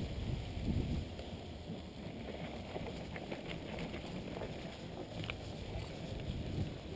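Wind buffeting the microphone and mountain bike tyres rolling, a steady low rumble, with a few short rattles of the bike about three seconds in and again near five seconds as it rolls off a dirt track onto asphalt.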